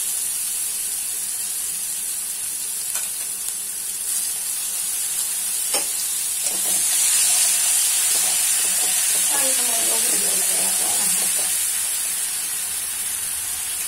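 Green chilli, ginger and garlic masala paste sizzling as it fries in hot oil in a kadai: the tempering for the potato vada filling. The sizzle is steady and grows louder about halfway through, with a couple of sharp metal clinks from the spoon.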